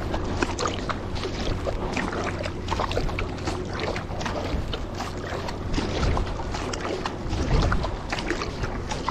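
Kayak-style double-bladed paddle strokes on a surfski: the blades dip and pull through lake water on alternate sides with splashing and dripping, over a steady low rumble of wind on the microphone.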